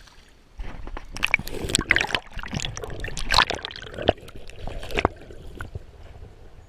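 River water splashing and sloshing in irregular bursts, from about half a second in until around five seconds, as a large hand-held steelhead thrashes in shallow water.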